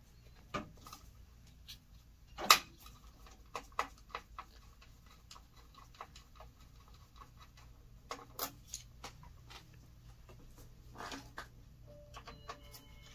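Scattered small clicks and knocks of hand work inside an open Zebra thermal label printer: wire connectors being unplugged from the main board and a hand screwdriver on its screws. The sharpest click comes about two and a half seconds in, another near eight and a half seconds.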